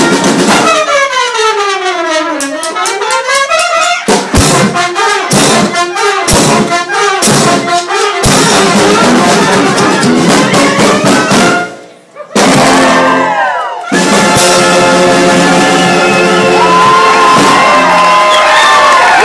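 Brass band of ten horns, a clarinet and four percussionists playing loudly: the horns sweep down and back up in a glissando, then punch out rhythmic accented hits with drum strokes. The band cuts off suddenly about twelve seconds in, slides down, and then holds a long sustained chord.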